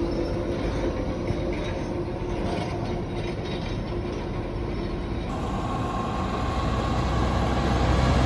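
Motor vehicle noise: a steady rumble of passing traffic that changes abruptly about five seconds in and grows louder near the end as a vehicle comes closer.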